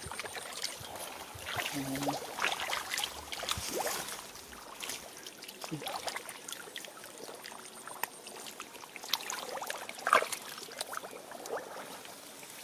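Shallow muddy water splashing, trickling and dripping as a plastic mesh basket is swept through it and lifted out, in irregular small splashes.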